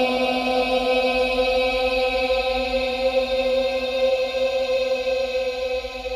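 Sustained chant-like choir drone holding one steady note, created as horror sound design; it begins to fade at the very end.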